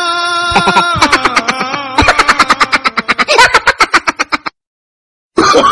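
Edited-in synthetic sound effects: a held electronic tone, then a rapid stuttering pitched sound of about ten pulses a second whose pitch bends, cut off abruptly into dead silence for nearly a second before loud sound returns near the end.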